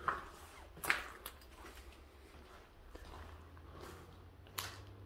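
Footsteps on a debris-strewn floor, with a few sharp clicks and cracks underfoot: one right at the start, two close together about a second in, and one near the end.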